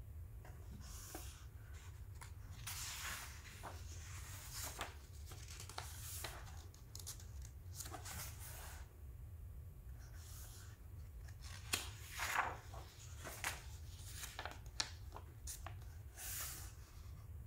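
Paper pages of a softcover children's picture book being turned and pressed flat by hand: irregular soft rustles and swishes, with a few sharper paper crackles about twelve seconds in.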